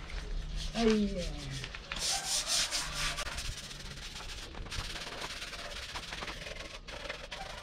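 Hand rubbing and scrubbing on the surface of a homemade sheet-metal truck bumper with a cloth or pad, cleaning it before body filler goes on; the strokes are heaviest about two to three seconds in. A short falling vocal sound comes about a second in.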